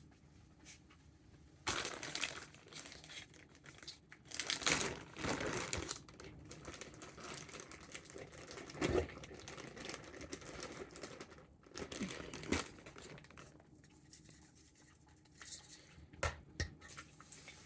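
Flour-coated chicken pieces dropped into hot frying oil, the grease sizzling and crackling, with several louder surges as more pieces go in.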